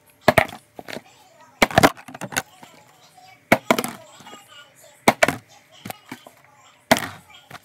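A plastic drinks bottle flipped and landing on a kitchen counter again and again, each landing a sharp knock and clatter, about five times at intervals of roughly a second and a half.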